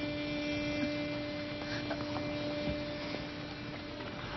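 Steady held drone on one low pitch, with a fainter tone an octave above it, over a faint hiss; the lower tone stops near the end.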